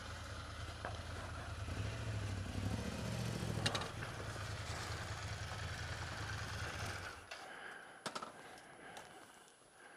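Ducati Scrambler's air-cooled L-twin idling at a standstill, then switched off about seven seconds in; a couple of short clicks, one just after it stops.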